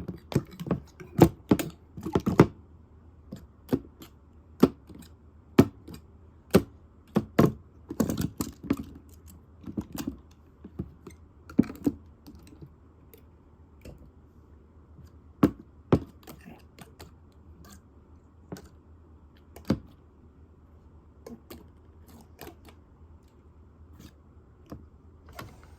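Irregular sharp clicks and taps, hard and dry, coming in quick clusters for the first couple of seconds and then singly every second or two.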